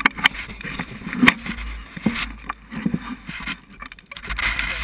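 ATV engine running, picked up by a camera mounted low on the quad's frame, with a low rumble and irregular sharp knocks throughout.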